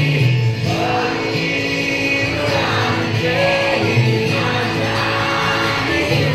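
Live concert music in a large hall, with singing and many audience voices joining in.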